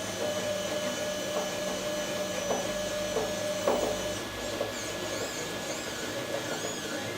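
3D printer stepper motors running: a steady hum with short whining pitch glides as the print head moves, and a few light clicks.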